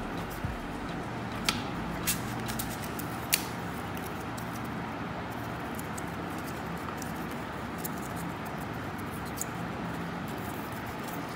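A steady low hum with a handful of sharp clicks and light taps in the first few seconds, from small cardboard pieces and a craft blade being handled on a hard floor.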